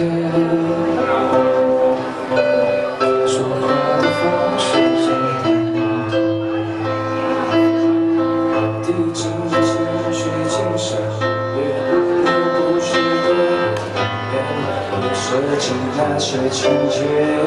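Live pop band playing through PA speakers: a male singer's amplified voice over guitar and keyboard accompaniment.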